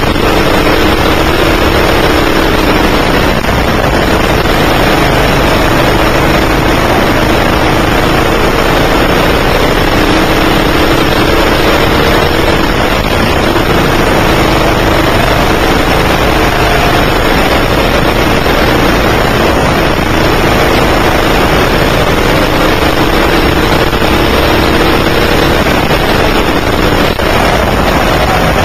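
A 9 hp go-kart engine running hard, heard from on board. It is loud and continuous, its pitch rising and falling as the kart speeds up and slows around the track.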